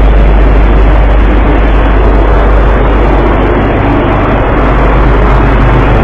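Ship's engine running steadily, a loud low hum under a dense rushing noise.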